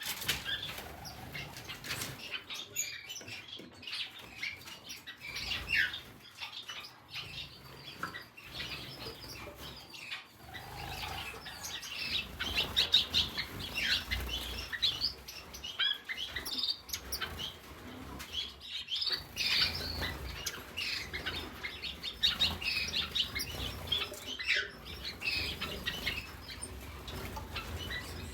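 A roomful of small cage birds, finches and canaries, chirping and twittering over one another without pause, with wings fluttering as they flit about.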